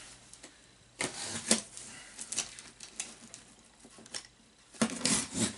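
A cardboard shipping box being cut open with a hook-blade utility knife: scrapes and clicks of the blade slitting along the box's seam, with rustling of cardboard, loudest and busiest near the end.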